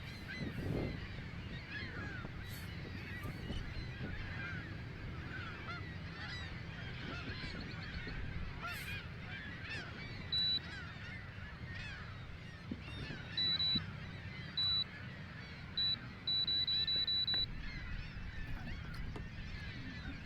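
A flock of geese honking and calling steadily. From about halfway the fishing reel's clicker buzzes in several short bursts, the last about a second long, as line is pulled off the spool by the bait or a fish.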